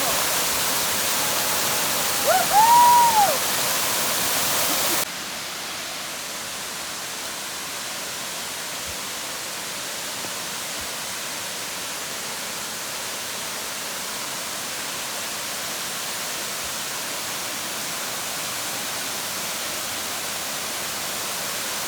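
Waterfall rushing as a steady even roar, which drops suddenly in level about five seconds in. About two and a half seconds in, a single whistle-like tone rises and falls over about a second, the loudest sound.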